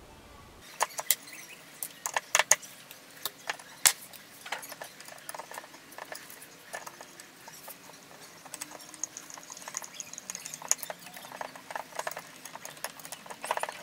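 Irregular small clicks and taps of a 3D-printed plastic coupler being handled and pushed onto a gear motor's keyed output shaft.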